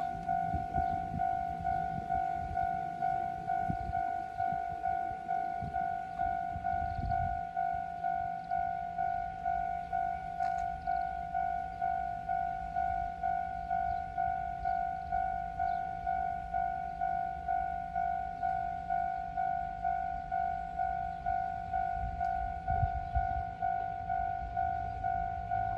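Japanese railroad crossing warning alarm ringing its steady two-tone "kan-kan" about twice a second, signalling that a train is approaching. A low rumble sits under it in the first several seconds and again near the end.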